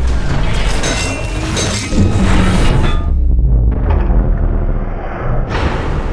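Logo intro sting: music with heavy bass booms and crashing, whooshing sound effects. The high end drops away about three seconds in, then comes back with a loud burst about two and a half seconds later.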